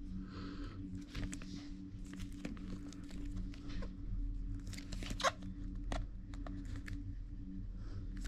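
Hands handling and turning a cardboard iPhone 12 Pro Max box: scattered rustles, scrapes and light taps, with a sharp click about five seconds in, over a steady low hum.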